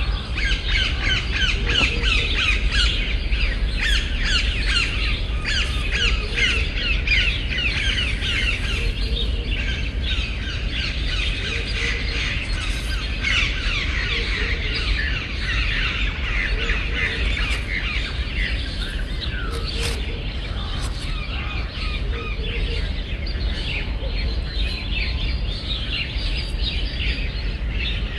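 A flock of small birds chirping and chattering in dense, rapid overlapping notes, busiest in the first half, over a steady low rumble.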